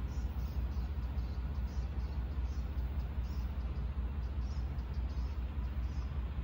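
Wind buffeting the microphone as a steady low rumble, with faint high chirps of insects in the grass repeating a few times a second.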